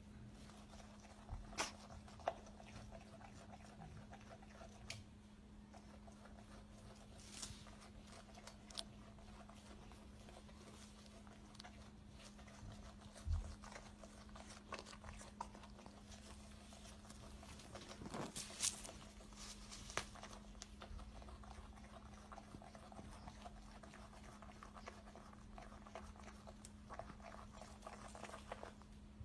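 Wombat joey chewing grass: faint, scattered clicks and crunches, a little busier a bit past halfway, over a steady low hum.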